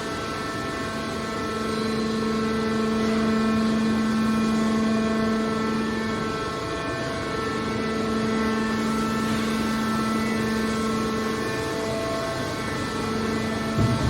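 Hydraulic car baler running with a steady machine drone and a constant humming tone from its power unit, the hum dipping briefly twice.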